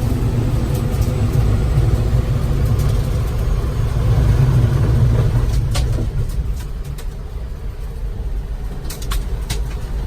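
Steady low rumble of a vehicle being driven, engine and road noise heard from inside, easing off a little past the middle. A few sharp clicks come through in the second half.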